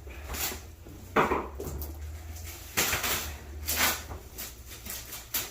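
Hard items clattering as they are handled and set down: several separate knocks, a second or so apart, over a low steady hum.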